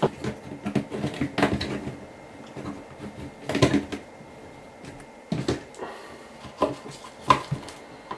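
Plastic bath overflow fitting handled and pressed into the overflow hole of an acrylic bathtub: irregular light knocks and clicks of plastic against the tub.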